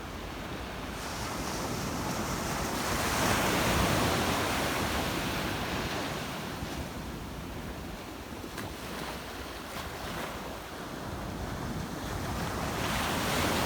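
Ocean waves breaking and washing in against large shoreline rocks, in two swells, the first peaking about four seconds in and the second rising near the end.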